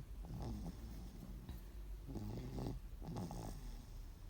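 Snoring: three short, pitched, rattling snores in a row, about a second apart.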